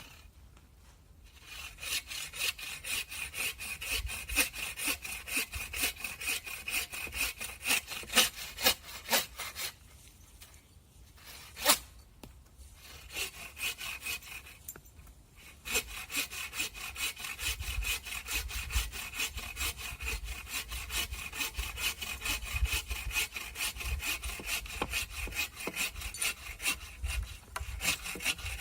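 Hand saw cutting through wood in quick back-and-forth strokes, stopping twice briefly before carrying on.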